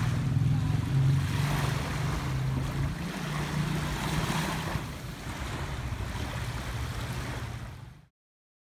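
Gentle sea waves washing on the shore with wind on the microphone, under a low steady hum. It all fades out near the end.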